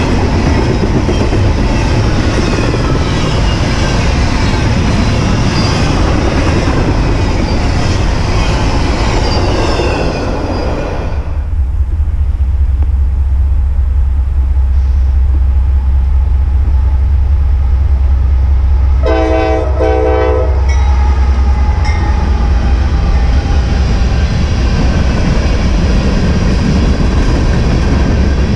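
A double-stack container freight train rolling past close by, its wheels rumbling and rattling on the rails. After a cut, a deep steady engine hum from an approaching freight locomotive; about two-thirds of the way in its air horn sounds a chord of several tones for a second and a half, and then covered hopper cars roll by.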